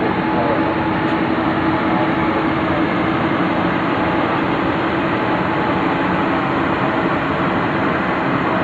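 Steady mechanical drone with a constant hum, from the generators and equipment running the floodlights and broadcast trucks.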